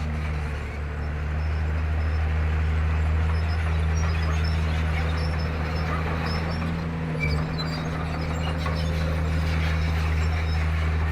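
Komatsu D31P bulldozer's diesel engine running steadily under load, a low even hum, with faint scattered clicks over it and one short knock about seven seconds in.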